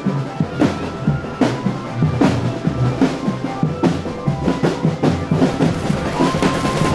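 Drum band playing: bass drums and snares beating a steady rhythm, with a strong crashing hit about every 0.8 s and a melody of held notes over the drumming.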